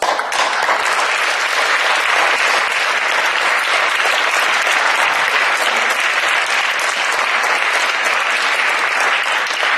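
Audience applauding, breaking out suddenly and keeping up steadily.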